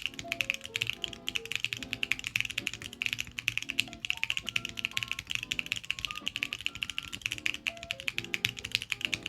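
Mode Sonnet mechanical keyboard with Jwick Black Lotus switches being typed on quickly and steadily: a dense run of crisp keystroke clacks, several a second. Softer background music plays underneath.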